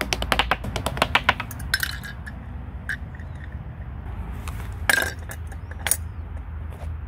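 A plastic ball bouncing down plastic block steps, a rapid run of hard clicks that thins out after about two seconds. About five seconds in comes a ringing metallic clink from a small tin bucket, and another a second later.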